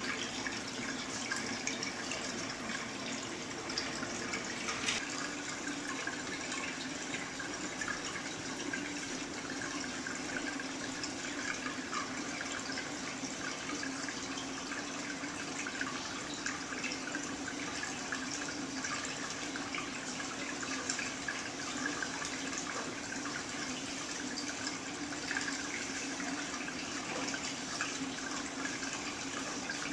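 Aquarium water circulating steadily, with a trickling, splashing outflow and small drips over a low steady hum.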